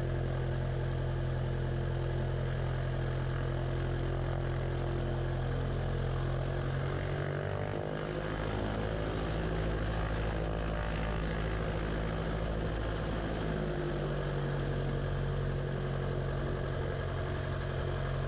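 Super Decathlon's four-cylinder Lycoming engine and propeller running at low taxi power, a steady engine note that steps up slightly in pitch about seven seconds in.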